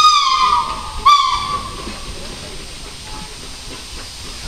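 Steam locomotive whistle: a long blast ends about half a second in, then a second short toot follows about a second in. A steady hiss of steam and train noise runs underneath.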